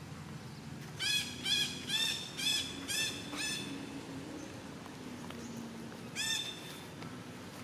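An animal calling: six short, high, arched calls in quick succession, about two a second, then one more a few seconds later.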